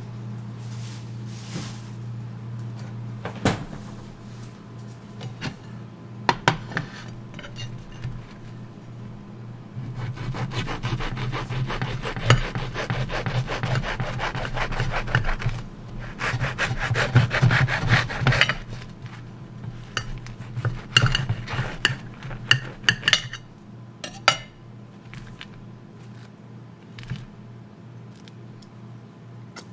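A knife sawing through a bread sandwich on a ceramic plate, in two long runs of rapid back-and-forth strokes about a third of the way in, with scattered clicks and taps of knife and plate before and after. A steady low hum sits underneath.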